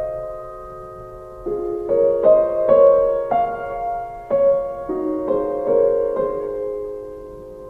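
Slow piano music: chords struck one after another and left to ring and fade, dying away near the end.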